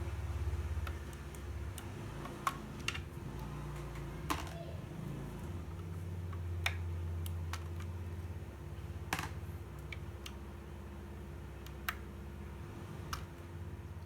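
Keystrokes on a Fantech MAXFIT61 mechanical keyboard fitted with lubed Gateron G Yellow linear switches: scattered, irregular key clacks over a steady low hum.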